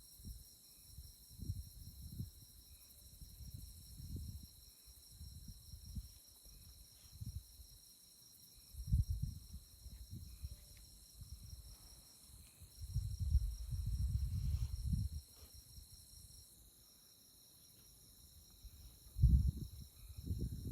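Night insects trilling steadily at two high pitches, one of them pulsing rapidly, with a fainter chirp repeating about once a second. Gusts of wind rumble on the microphone several times and are the loudest sound.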